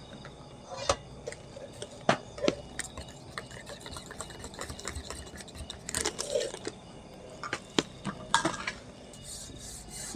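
Scattered light clicks, knocks and clatter of a plate, chopsticks and a metal cup being gathered up and put away, over faint steady chirping of crickets.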